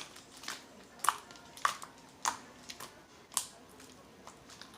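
Slime being squeezed and pressed by hand, giving a string of small sticky pops and clicks at irregular intervals, roughly every half second.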